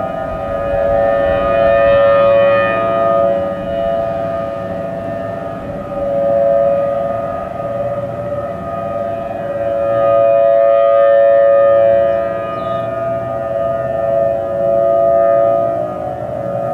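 Several outdoor warning sirens, including Federal Signal Thunderbolt 1000T mechanical sirens, sounding a steady tone together at slightly different pitches. The level swells and fades every few seconds as the rotating siren heads sweep past.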